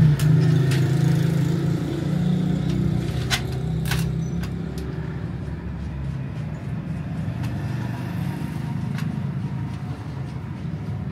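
A motor vehicle engine running close by, loudest in the first few seconds and then easing off, with a couple of sharp clicks about three to four seconds in.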